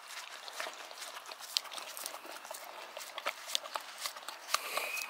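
Boxer puppy licking and eating dog ice cream: irregular wet lapping and smacking clicks.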